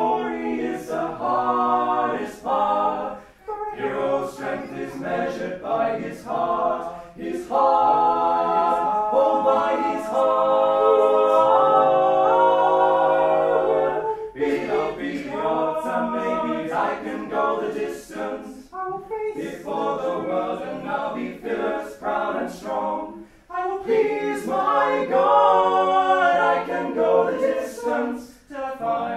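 A choir singing a cappella, several voices in harmony holding long chords, with short breaks between phrases.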